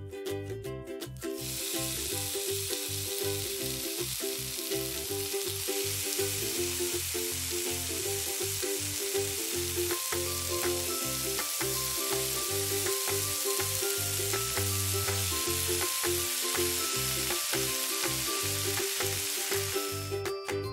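A small piece of beef steak sizzling on a miniature grill. The sizzle starts about a second in, runs steadily, and cuts off just before the end as the meat is lifted off.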